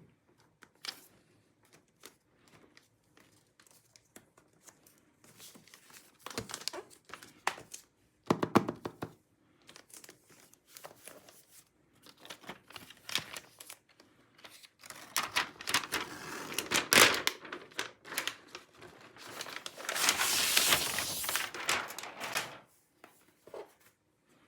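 Packaging being handled and opened by hand: crinkling and tearing of paper or plastic wrap, with scattered clicks and light knocks. It is loudest in two rustling stretches about fifteen and twenty seconds in.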